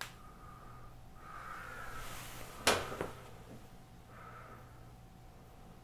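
Breathing through an N95 mask, two slow breaths a couple of seconds apart, with a sharp clack about halfway through and a smaller one just after.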